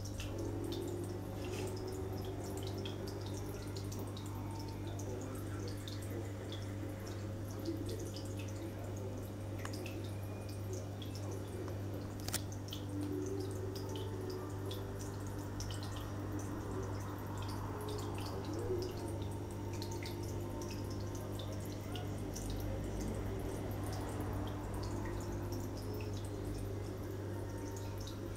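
Aquarium water dripping and trickling in many small irregular splashes over a steady low hum, with one sharper click about twelve seconds in.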